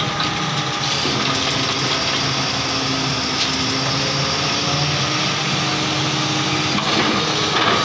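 Truck-mounted borewell drilling rig running steadily, its engine and hydraulics making a loud, even machine noise with a held hum.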